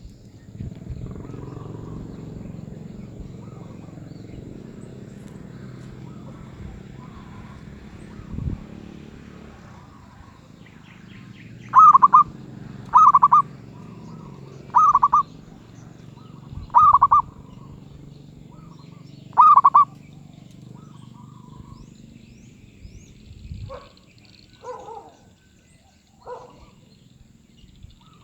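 Zebra dove (merbuk) of the medium-voice class cooing: soft notes at first, then a run of five loud, short cooing phrases a second or two apart, followed by a few softer notes near the end. A steady low rumble lies underneath.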